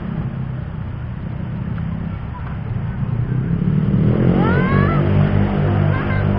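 Low rumble of road traffic, swelling from about three seconds in as a motor vehicle speeds up past, its engine note rising in pitch.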